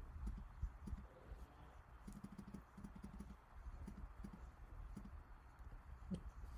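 Faint, irregular clicks and soft knocks of a computer being operated by pointer clicks, with a cluster of quick clicks about two to three seconds in, over a low steady hum.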